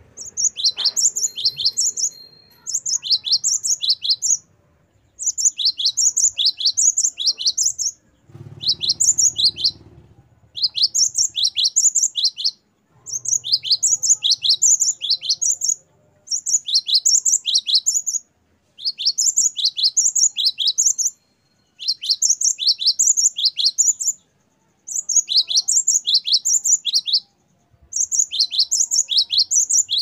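A great tit singing: repeated bouts of rapid, high, two-note whistled phrases, each bout about two seconds long with short pauses between.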